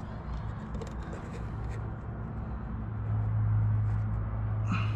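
A low steady hum that grows louder about three seconds in, with a few faint clicks in the first couple of seconds.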